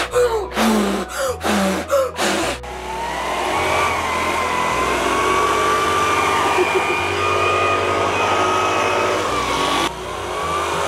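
A hair dryer starts about two and a half seconds in and runs steadily, its motor giving a whine over the rush of air, with a brief drop just before the end. Before it come a few short separate sounds.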